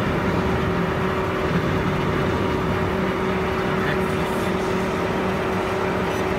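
A 100-litre vacuum homogenizing mixer running, with its homogenizer, vacuum pump and main-tank stirrer switched on: a steady machine noise with one constant tone held over it.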